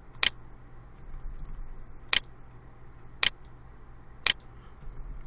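Four short, sharp computer mouse clicks at irregular intervals, selecting objects one by one, over a faint steady low hum.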